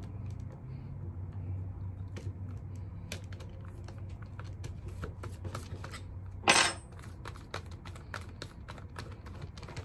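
Small clicks and rattles of a cordless drill's keyless chuck and an Allen key being twisted and handled to unscrew the chuck, with a louder metal clatter about six and a half seconds in as the Allen key is dropped on the wooden bench.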